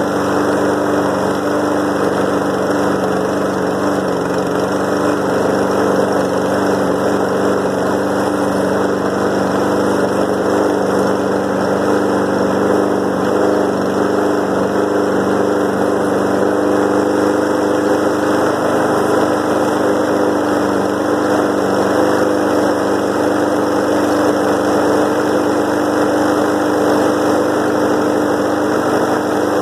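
2007 Snapper self-propelled lawn mower engine running steadily at an even speed, just after a frozen cold start at 19 °F.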